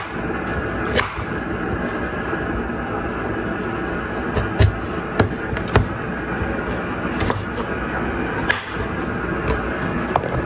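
Kitchen knife cutting through a raw carrot and striking a wooden cutting board, about seven separate knocks at irregular intervals.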